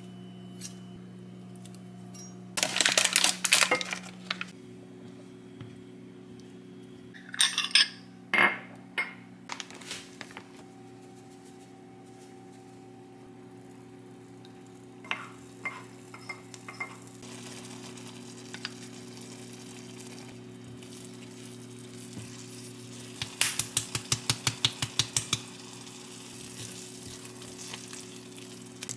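Cooking sounds at a saucepan making apple pie filling: chopped apples scraped off a knife into the pan with a burst of scraping and sizzling about three seconds in, then a few knocks. Near the end a spatula stirs the apple filling, knocking against the pan about five times a second.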